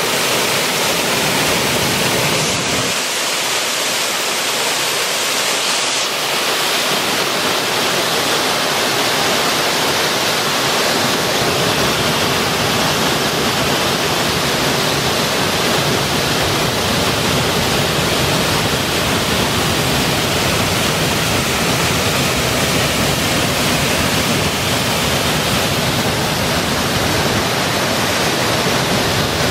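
Waterfall: a loud, steady rush of water falling over rock into a plunge pool. The deep low part of the rush drops away for a few seconds near the start, then returns.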